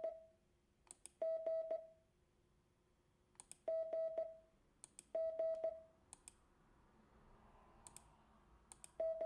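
Morse code tone for the letter G: a single steady beep of middle pitch keyed on and off in separate beeps of about half a second, with sharp clicks, many in pairs, between the beeps.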